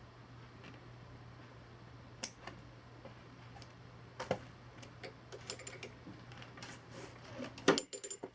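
Scattered light clicks and taps of hand tools and materials being handled during a leather boot repair, the loudest near the end, over a steady low hum.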